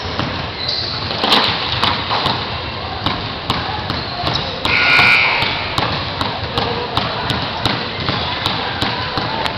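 Basketballs bouncing on a hardwood gym floor: irregular sharp thuds in a large gym hall, with a brief high-pitched tone about five seconds in that is the loudest sound.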